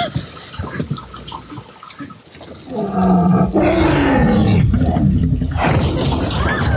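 Film sound effect of a Tyrannosaurus rex, a loud low growl-roar that begins about three seconds in and slides down in pitch, over the hiss of heavy rain.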